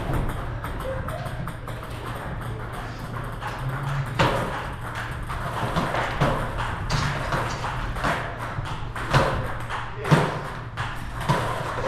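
Table tennis ball being hit back and forth in a practice rally: sharp clicks of ball on paddle and table, coming about once a second from about four seconds in, with fainter clicks from other tables.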